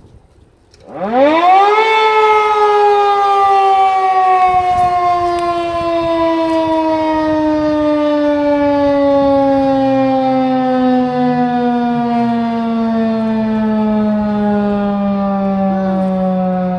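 Tornado warning siren starting up: its pitch climbs steeply for about a second, then slides slowly downward while it sounds loudly. This is the siren's monthly test.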